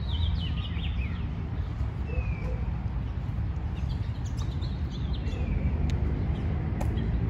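Small birds chirping in the trees, with a short falling call repeated a few times, over a steady low background rumble.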